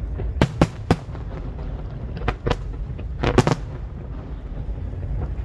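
Aerial fireworks shells bursting in a series of sharp bangs, several in quick succession about three seconds in, over a steady low rumble.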